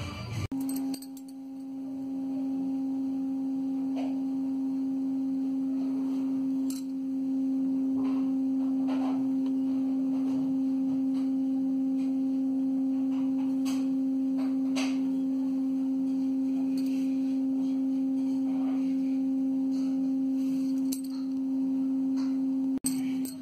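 A single steady pure tone with faint overtones, held unchanged for about twenty-two seconds. It starts and cuts off abruptly, like a drone or long held note laid on as background music.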